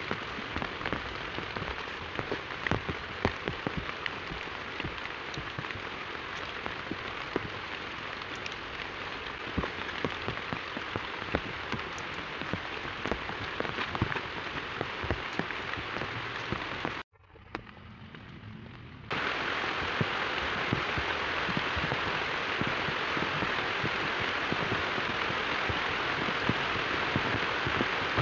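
Heavy rain falling on a surface, a steady hiss with many sharp ticks of single drops. About two-thirds of the way through it drops away suddenly for a couple of seconds, then returns louder and denser.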